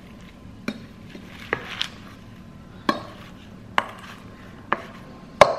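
Wooden spoon tossing a kale salad in a stainless steel bowl, knocking against the metal about once a second, with the loudest knocks near the end.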